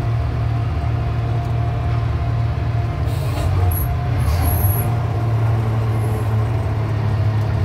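Grapple yarder's diesel engine running steadily, heard from inside the operator's cab, with a steady whine above the engine's drone. A few short hisses of air come about three to five seconds in.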